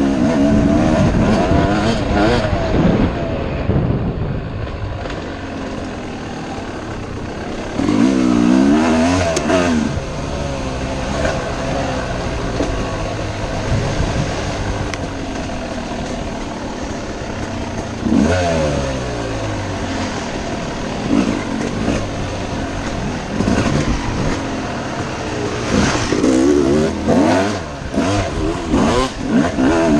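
Yamaha YZ250 two-stroke dirt bike engine revving up and down over and over as the bike is ridden hard through a hare scramble course, with repeated climbs in pitch as it accelerates.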